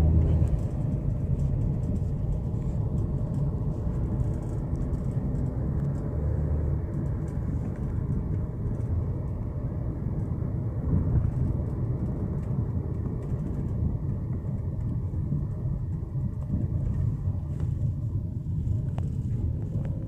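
Steady low rumble of engine and road noise from a moving vehicle, heard from inside as it drives along.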